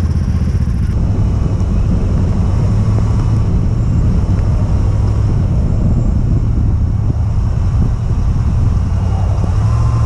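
Steady low rumble of a Chevrolet K1500 Z71 pickup driving on a snow-covered road, its engine and the tyre and road noise running evenly without revving.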